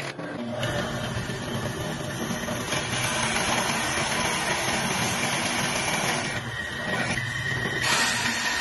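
A power tool running steadily. Its noise shifts briefly about six and a half seconds in, and again near the end.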